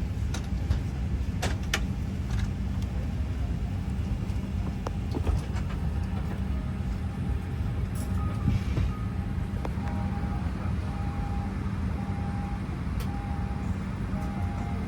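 Steady low rumble inside the cabin of a Boeing 737-800 after arrival, with scattered clicks. From about halfway through, a short beep repeats at a steady pace.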